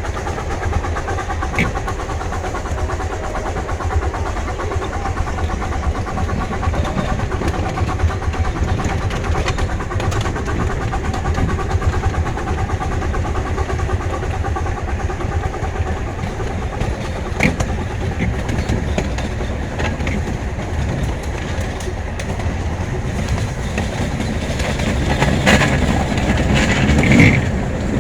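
A 15-inch-gauge miniature steam train, hauled by locomotive #7 'Oak', heard from aboard as it runs along the track: a steady low rumble with a few sharp clicks, and a louder, hissier stretch near the end.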